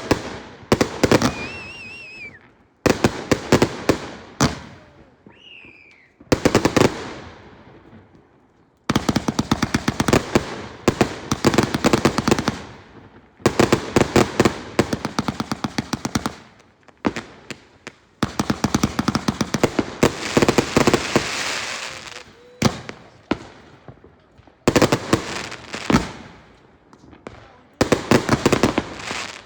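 Fireworks going off in repeated volleys of rapid crackling bangs, each volley lasting a few seconds, with short pauses between them.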